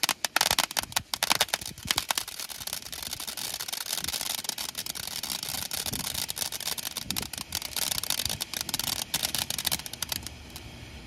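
Crackling firework going off: a dense run of rapid small pops and snaps, heavier in the first few seconds, then a finer steady crackle that dies away near the end.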